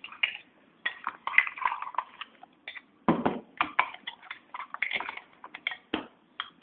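Spoon scraping and clinking against a small stainless steel bowl in quick, irregular strokes while stirring tempering into a thick chutney paste.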